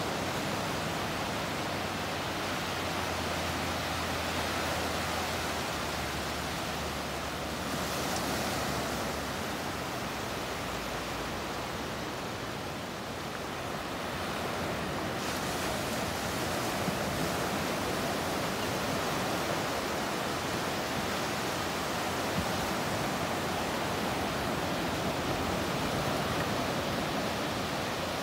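Gentle ocean surf: small waves breaking and washing up over a flat sand beach, a steady rushing noise that swells a little now and then.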